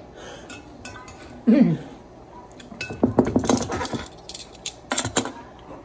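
Metal tongs clinking and scraping against a large glass pickle jar as a pickle is fished out of the juice, with a quick run of clinks about three seconds in and another clink near the end. A short falling vocal sound comes about a second and a half in.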